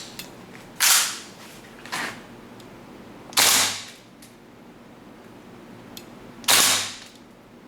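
WE AK74 gas blowback airsoft rifle firing single shots on green gas: three loud cracks a few seconds apart, with a fainter shot about two seconds in and small mechanical clicks between.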